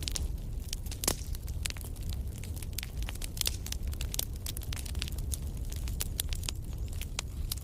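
Wood campfire crackling and popping: irregular sharp snaps, one louder pop about a second in, over a steady low rumble.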